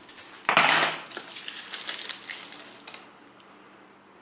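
Small objects being rummaged through and handled. There is a loud crinkling, crushing burst about half a second in, then lighter crackles and clicks that die away about three seconds in.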